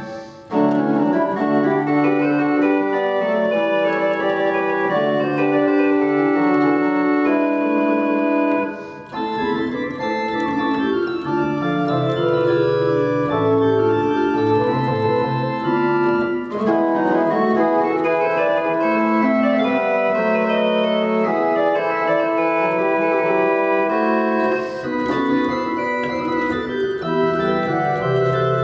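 Church organ playing contrapuntal Baroque music, several held lines moving at once. There are short breaks between phrases just after the start and about a third of the way in.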